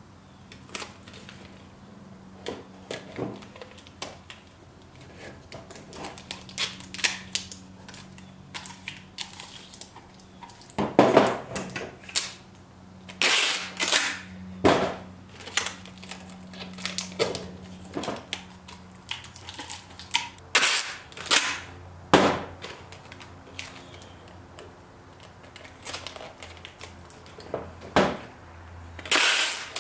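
Packing tape being pulled off the roll and torn, in sharp loud rips that come in clusters: about 11 seconds in, again around 20 seconds, and near the end. Quieter clicks and handling of the plastic pipe fittings come in between.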